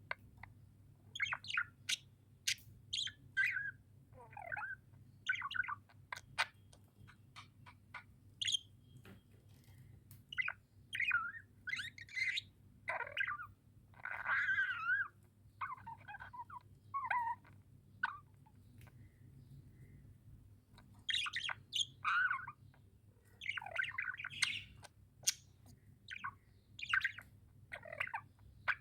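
Budgerigars chirping and warbling: many short, irregular chirps and squawky notes, with a short lull in the middle, over a faint steady low hum.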